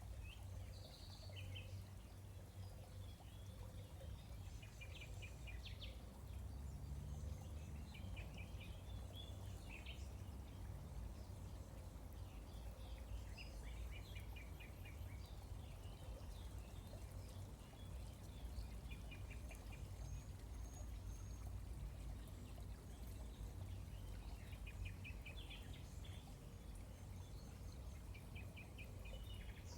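Running water with a steady low rush, and birds calling over it several times in short, rapid stuttering trills.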